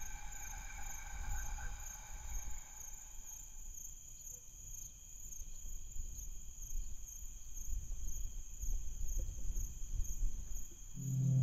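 High insect chirring, pulsing evenly about twice a second, over a low rumble of wind-like noise. A sustained ambient tone fades away in the first few seconds, and a low, steady musical drone comes in just before the end.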